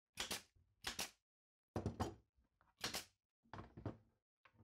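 A nail gun firing nails into a glued, clamped wooden stop block: about six sharp shots, roughly one a second.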